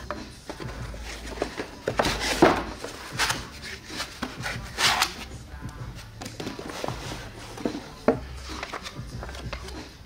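Cardboard box and foam packaging being handled: rubs and knocks, loudest about two and a half seconds in and again around five seconds, as an amplifier is lifted out, with paper handled near the end. Background music with a steady low bass runs underneath.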